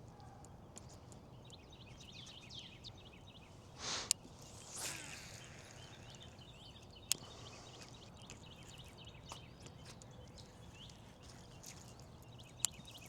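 Faint outdoor ambience of birds chirping and twittering. Two short swishes sound about four and five seconds in, along with a few sharp clicks.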